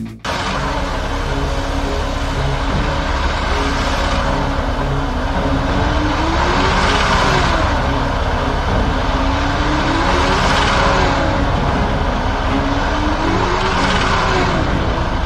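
StuG III assault gun on the move: a steady, loud rumble of engine and running gear. The engine note rises and falls about every three and a half seconds.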